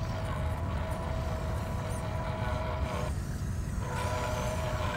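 Small electric motor and gear drive of a 1/12-scale RC rock crawler whining at a steady pitch over a low rumble. The whine cuts out for about a second near three seconds in, then resumes.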